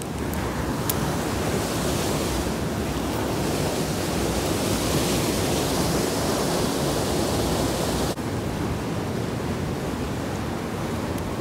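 Mountain stream rushing over rocks and through rapids: a steady, unbroken wash of water noise that drops slightly in level about eight seconds in.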